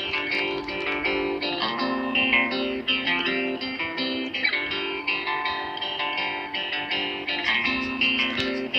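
Background music led by a plucked guitar, a bright, busy melody over repeating chords.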